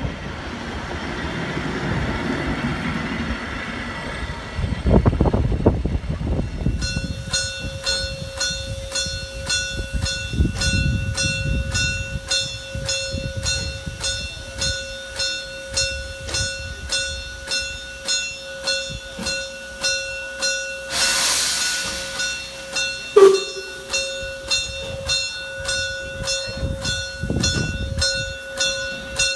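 Steam train's passenger coaches rumbling past on the track. About seven seconds in this gives way to a steady tone with a ringing strike roughly once a second, while the steam tank locomotive SJ 1916 stands shunting. About two-thirds of the way through comes a brief burst of steam hiss, then a sudden loud knock.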